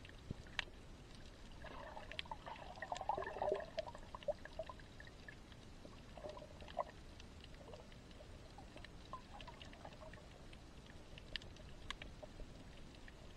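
Underwater sound picked up by a submerged camera: scattered sharp clicks and crackles, with a spell of bubbling and gurgling about two seconds in and a shorter one around six seconds.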